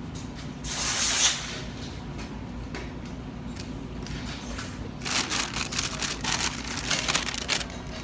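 Small parts being handled at a workbench: a brief hiss-like rustle about a second in, then a run of rustling and light clicks from about five seconds in, over a steady low hum.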